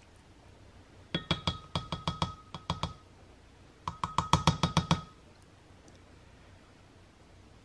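Measuring spoon clinking against the inside of a glass Pyrex measuring cup while stirring paint, in two bursts of quick taps, each with a ringing note from the glass.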